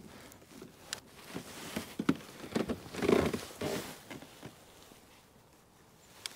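Scattered light knocks and clicks of gear being handled in a plastic kayak, with a short swishing rustle about three seconds in and a single sharp click near the end.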